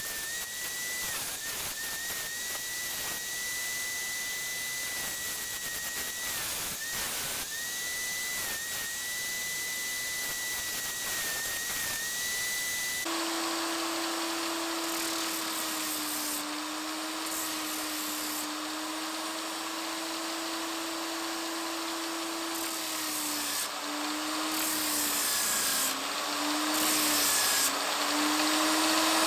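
Angle grinder fitted with a sanding disc and clamped to the bench as a disc sander, running while a piece of wood is sanded against it; its whine dips briefly in pitch each time the wood bears on the disc. About halfway through the whine drops abruptly to a much lower pitch, and the sound grows louder near the end.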